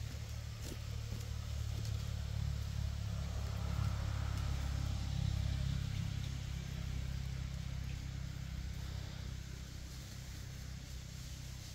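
Low, steady engine rumble of a vehicle running off-camera, growing louder a couple of seconds in and fading again toward the end.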